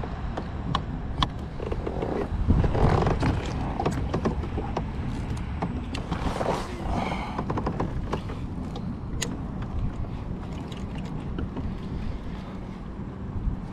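Wind buffeting the microphone in a steady low rumble, with scattered small clicks and knocks of fishing gear being handled in a plastic kayak. A brief swish comes about six or seven seconds in.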